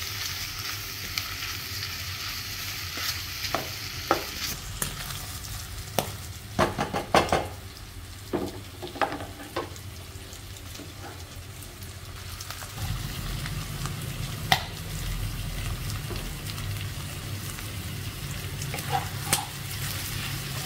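Squid rings stir-frying in a stone-coated pan over a gas burner: a steady sizzle, with the spatula scraping and knocking against the pan in clusters every few seconds. The frying gets louder about two-thirds of the way through.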